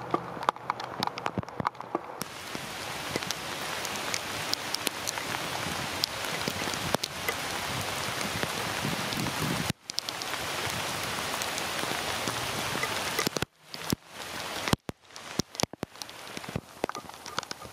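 Heavy rain, picked up by the built-in microphone of a Panasonic FZ300 camera out in the downpour. A dense, steady hiss builds in about two seconds in and holds. Near the end it breaks into choppy patches with brief dropouts and many sharp, close drop ticks.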